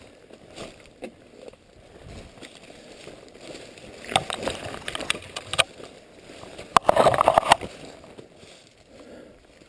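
Footsteps crunching through dry oak-leaf litter and brush scraping and crackling against the camera and clothing while pushing through undergrowth. A crackly stretch of snaps begins about four seconds in, and the loudest burst of rustling comes about seven seconds in.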